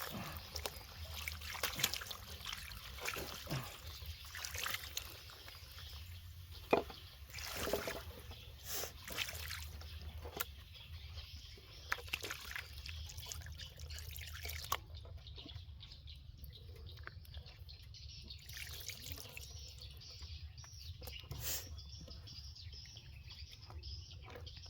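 Water trickling and dripping, with scattered clicks and knocks.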